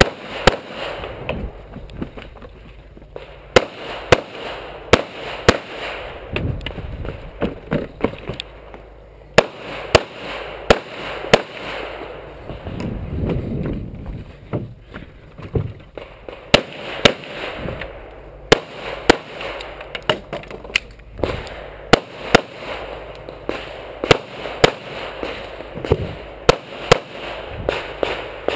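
Handgun shots fired in quick succession, roughly half a second to a second apart, in strings broken by a short lull near the middle while the shooter moves between shooting positions.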